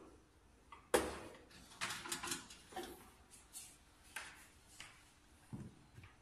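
A string of sharp plastic clicks and knocks as power plugs are pushed into sockets and a power strip is handled, the loudest about a second in.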